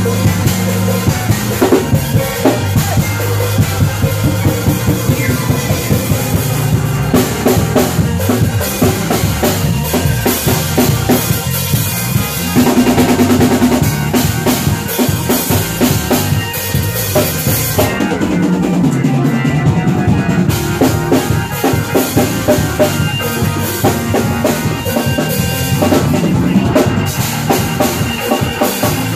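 A live church band jamming in a gospel shed: a drum kit plays fast, busy patterns and fills on snare and bass drum over bass and organ. The cymbals drop out briefly a little past the middle.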